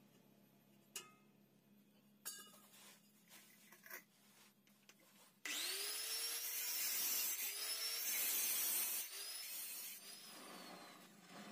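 Electric angle grinder starting up about five seconds in and working against the car's exhaust pipe, its whine rising and falling several times as the disc bites, then easing off near the end. A few clicks and knocks of handling come before it starts.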